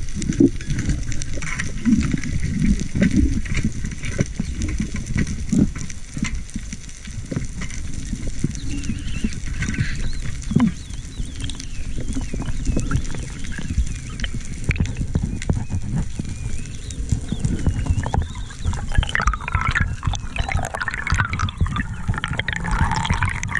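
Underwater camera audio: a continuous muffled rumble of water moving past the camera housing, with scattered clicks and knocks throughout.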